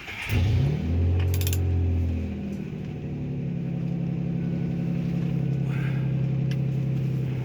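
A motor starts up with a quick rise in pitch and runs with a steady hum, stepping up to a higher pitch about two and a half seconds in.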